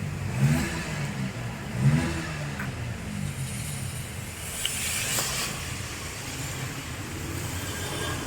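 Road traffic: vehicle engines running and passing, with a couple of short revs near the start and a hiss, like tyres on a wet road, about five seconds in.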